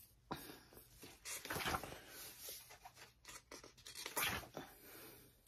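Paper pages of a coloring book being turned and handled: faint rustling, louder briefly about a second and a half in and again around four seconds.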